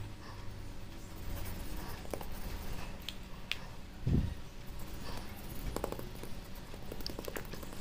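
Hands patting and rubbing seasoning into raw chicken breast fillets on a plastic cutting board: scattered light taps and clicks, with a dull thump about four seconds in, over a low steady hum.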